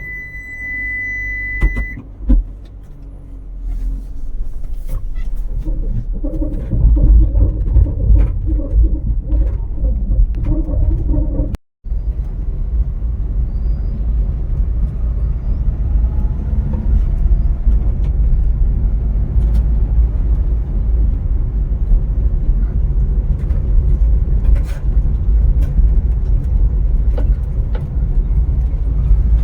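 Vehicle driving along a road: a steady low rumble of engine and road noise, heavier from about a quarter of the way in. A steady high tone sounds at the very start and ends about two seconds in. The sound cuts out completely for a moment a little before the middle.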